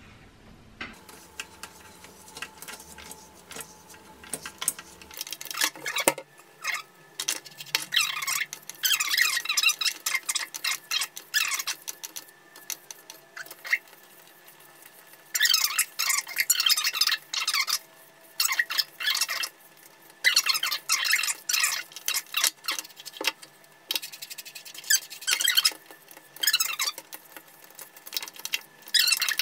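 Hair rustling in bursts as it is handled and drawn through a flat-iron hair straightener, with scattered light clicks.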